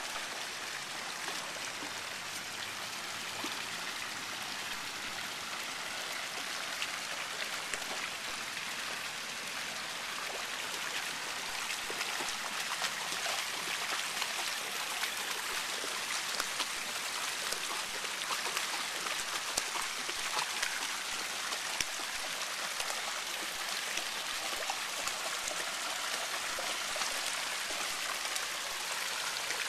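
Steady flow of shallow water in a stone moat, dotted with many small splashes and drips as a Samoyed's paws wade through it.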